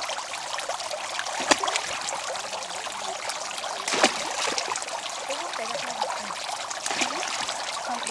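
Water pouring and trickling steadily into a tarp-lined tank of live fish, with a couple of sharp splashes about one and a half and four seconds in.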